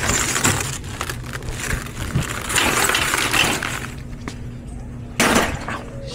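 Plastic-wrapped 24-pack of bottled water crinkling and rustling as it is lifted and set onto the bottom rack of a metal shopping cart. About five seconds in comes a short sharp knock as a head bumps the cart.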